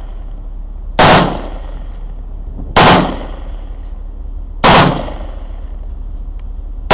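Kalashnikov-pattern assault rifle fired in single shots, about one every two seconds. Three shots come about a second, three seconds and five seconds in, and a fourth falls right at the end. Each loud report dies away over about half a second, over a steady low hum.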